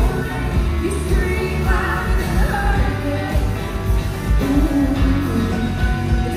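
Live rock band playing: electric guitars, keyboard and a drum kit keeping a steady beat under a sung vocal line, heard from the audience in the venue.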